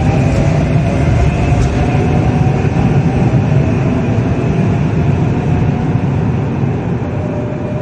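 Trenord double-deck suburban electric train running past on the track beside the platform in an underground station: a loud, steady rumble with a whine, easing off slightly toward the end.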